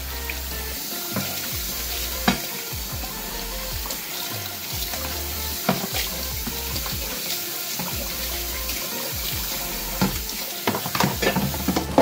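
Kitchen faucet running steadily into a stainless steel sink as a white plastic dish drainer is rinsed and scrubbed under it, with occasional clicks and knocks of the plastic against the sink, several in quick succession near the end.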